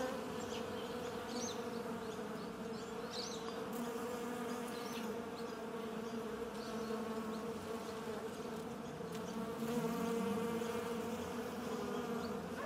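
Honeybees buzzing in a steady, continuous hum whose pitch wavers slightly.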